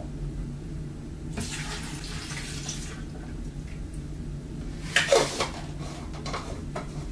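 Homemade probiotic liquid poured from a small glass into a blender jar of soaked walnuts for a second and a half. A few sharp knocks follow, the loudest cluster about five seconds in.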